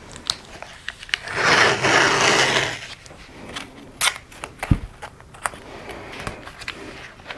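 Blue painter's tape pulled off its roll in one long stretch about a second in, followed by scattered clicks and a dull thump as the tape is pressed down onto a plastic Flow Hive frame.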